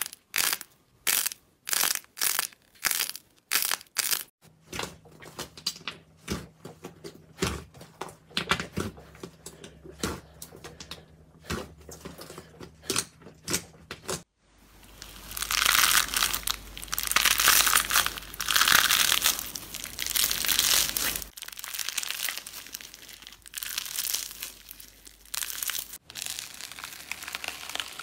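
Slime being stretched and kneaded by hand. At first it gives sharp crackling pops at about two a second. After several seconds this turns to denser, softer crackling, and about halfway through to a long spell of loud, dense crackling and squishing as thick fluffy slime is worked. The sound changes again each time the slime changes.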